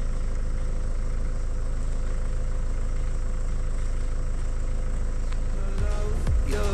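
Steady low rumble of a vehicle engine running at an even pace. Music comes in during the last second.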